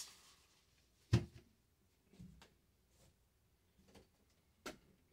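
Remington 870 Tac-14 shotgun set down on a towel-covered table: a single dull knock about a second in. Faint handling sounds follow, and a light click comes near the end.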